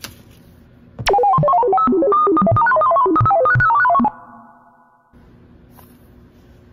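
A short musical jingle edited into the video: a quick run of bright, piano-like keyboard notes begins about a second in, lasts about three seconds, then rings out. Before it, faint room tone and a click.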